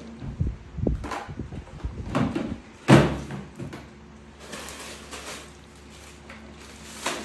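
Several irregular knocks and bumps, the loudest about three seconds in, over a faint steady hum.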